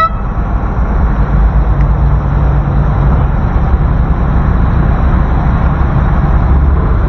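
Motorboat engine running with a steady low drone, growing a little louder about a second in.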